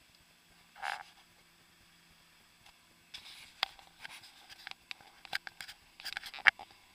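Speedboat hull knocking and jolting over choppy waves, picked up as scattered sharp taps and thumps over a faint low engine hum; the knocks thicken from about halfway, with the hardest jolt near the end.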